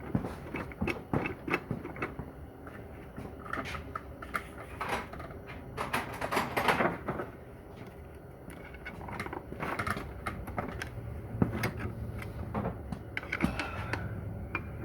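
Irregular metallic clicks, knocks and scrapes of hand tools against the steel parts of a Corvair Powerglide transmission being dismantled, with a low hum in the later part.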